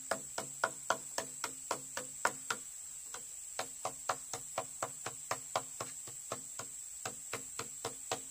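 Rapid, even knocking strokes of a tool on bamboo or wood, about four a second with a brief pause about three seconds in, each knock ringing briefly. A steady high insect drone, typical of jungle cicadas or crickets, runs underneath.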